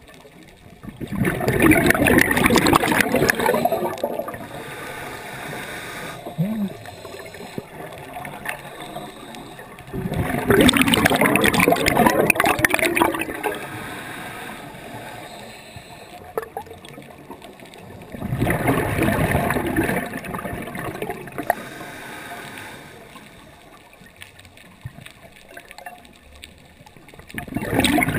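Scuba regulator exhaust: a diver's exhaled bubbles rush out in bursts of about three seconds, roughly every eight seconds. Three full bursts are heard, and a fourth begins near the end. Between them is a quieter underwater hiss.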